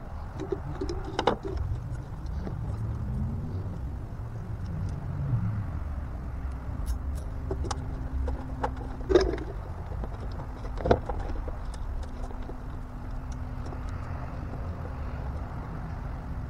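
Several sharp knocks and light clicks as bundled wiring cables are handled and pushed along inside a fiberglass boat hull, over a steady low outdoor rumble. A faint steady hum comes in about halfway through.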